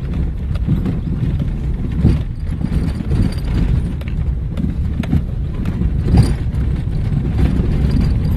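Car interior noise while driving over a rough dirt track: a steady low rumble from the engine and tyres, with irregular knocks and rattles as the car jolts over bumps, two louder jolts about two seconds in and near six seconds.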